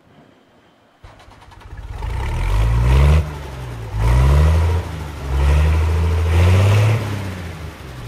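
Case IH 8010 combine's diesel engine coming in suddenly about a second in, then revving up and down several times in loud surges.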